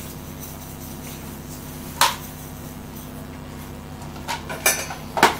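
A few sharp clinks of a utensil against a steel kadai as sugar is poured into carrot halwa: one about two seconds in and a small cluster near the end, over a low steady hum.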